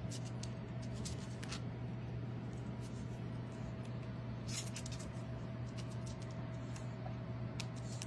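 Pomeranian puppies' and their mother's claws clicking and scratching on a hard floor as they wrestle, in scattered clusters of short, sharp ticks, over a steady low hum.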